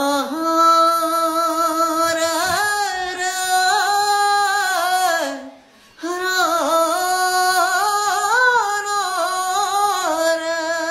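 A single high voice singing a wordless, ornamented melody in two long held phrases, with a brief break about five and a half seconds in.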